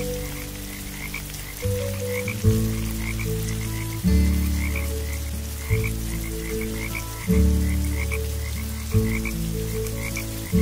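Frogs calling on a nature soundtrack: short high chirping calls a couple of times a second over a faint rain hiss. Deep low notes start sharply and fade about every one and a half seconds, and these are the loudest part.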